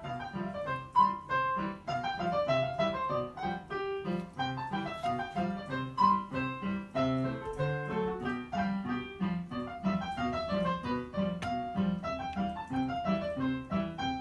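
Background piano music: a steady run of quick notes in the treble over a regularly repeating bass pattern.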